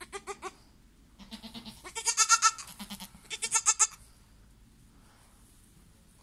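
Goat kid bleating for its mother: a short quavering bleat at the start, then a run of louder, wavering bleats in quick succession from about one to four seconds in.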